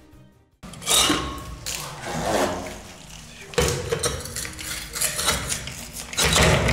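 Irregular knocks, scrapes and metallic clanks of a diamond core drill and its crown bit being worked and pulled out of a freshly cored socket-box hole in concrete, starting about half a second in.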